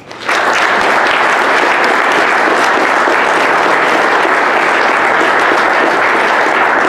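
Audience applauding: a dense, steady round of clapping that starts a fraction of a second in, louder than the talk around it.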